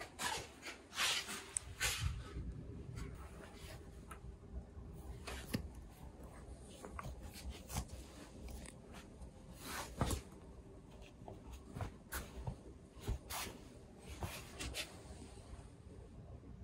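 Soft rustling and scattered light clicks and knocks of objects being handled in a small room, over a faint steady hum.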